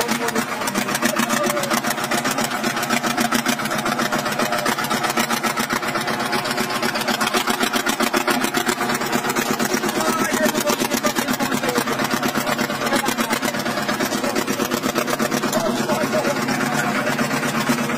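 A compact tractor's diesel engine runs steadily under a heavy load, with a fast, even firing beat, as it climbs a steep slope. Men's voices call out now and then over it.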